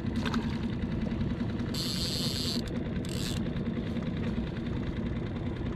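Small outboard motor running steadily at slow trolling speed. There is a small splash about a third of a second in as a live mackerel is dropped into the water. Two short high hissing bursts come about two and three seconds in.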